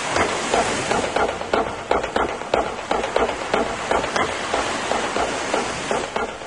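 Ocean surf breaking on rocks, with a fast, even beat of sharp taps over it, about three or four a second.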